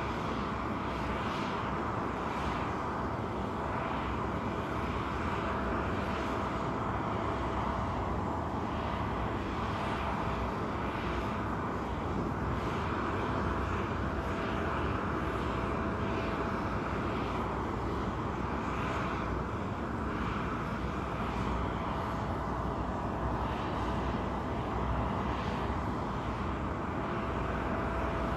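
Parked jet airliner running on the ramp: a steady whine and rumble with one constant pitched tone held throughout.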